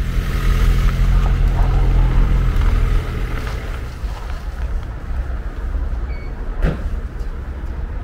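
A motor vehicle engine running steadily for the first two and a half seconds, then dropping away to a low rumble. A short high chirp and a single sharp knock come near the end.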